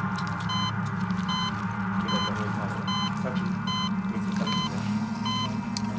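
Patient monitor beeping at an even pace, a bit faster than once a second, each beep a short multi-tone bleep, over a steady low drone.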